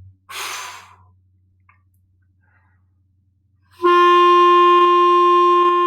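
A quick breath taken in about half a second in, then after a pause a clarinet note starts cleanly with the tongue near the end and is held at a steady pitch.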